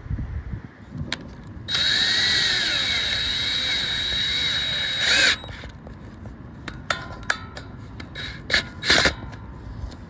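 Power drill running for about three and a half seconds with a high whine whose pitch sweeps up and down, then stopping, while anchoring the railing's steel base plates to concrete with screws. Several sharp clicks and knocks follow.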